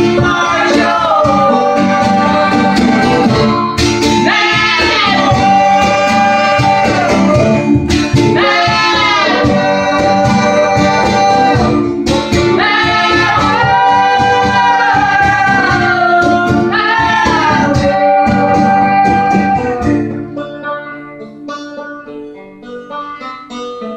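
Several voices holding long sung notes in close harmony over strummed banjo and guitar. About 20 seconds in the singing stops and the strings ring out and fade.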